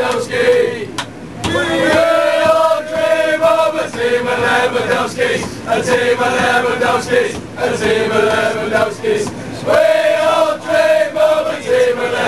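A crowd of male football fans singing a chant together in a packed tram, in unison on long held notes, in repeated phrases with short breaks between them.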